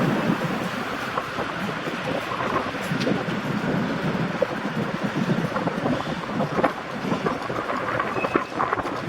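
Diesel-hauled train running over points: steady rolling rumble with wheels clattering over the rail joints, and a brief high wheel squeal near the end.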